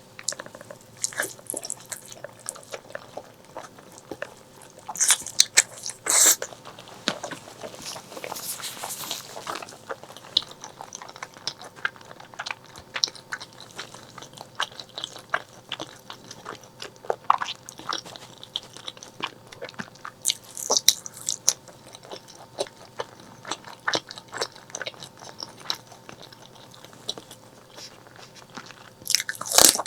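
Close-miked eating of braised pork leg: irregular wet chewing and smacking clicks with crunchy bites, the loudest bites coming about five seconds in, around twenty seconds in and near the end.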